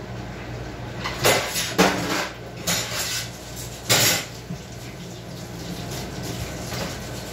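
Cutlery and dishes clattering: a few sharp clinks and knocks between about one and four seconds in, over a steady low hum.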